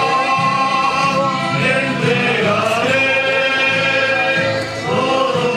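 Religious hymn sung by a group of voices over steady instrumental accompaniment, with long held notes.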